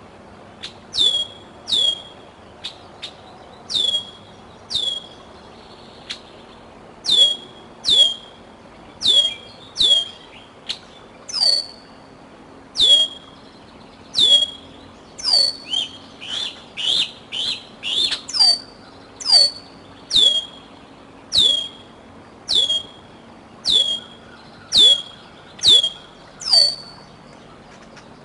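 Juvenile bald eagle calling over and over, a high, piercing whistle that slides sharply downward, about once a second, with a quicker flurry of lower calls around the middle. These are typical food-begging calls of a young eagle.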